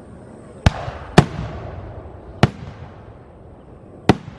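Festival fireworks going off: four sharp bangs at uneven intervals, each followed by a fading rumble of echo.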